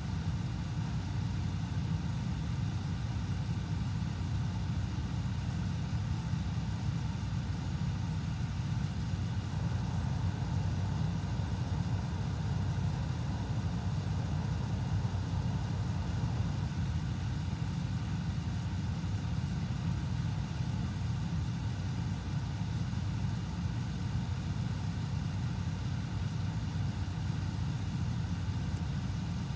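Steady low mechanical hum of a running machine, even in level throughout.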